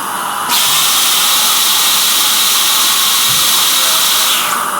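High-speed dental drill running with a steady high whine and the hiss of its water spray, starting about half a second in and stopping shortly before the end. Under it, the steady hiss of the suction tube.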